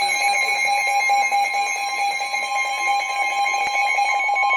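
Emergency Alert System warning alarm: a loud, steady electronic tone just above 1 kHz with a rapidly pulsing beeping alarm layered over it.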